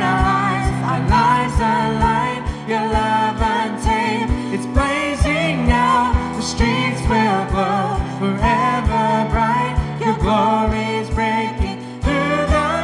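Worship team singing a contemporary Christian worship song into microphones, several voices over instrumental accompaniment with a steady drum beat.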